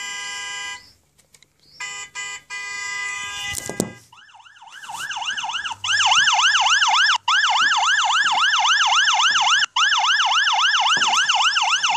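Ambulance siren sound effect, a fast rising-and-falling wail of about three sweeps a second, starting about four seconds in and cutting off sharply at the end. Before it come two short, steady held tones.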